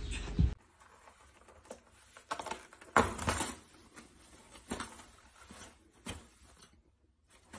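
A steady low hum cuts off about half a second in. After it come soft, scattered rustles and taps of toilet paper as a kitten bats and claws at a hanging roll, a second or so apart.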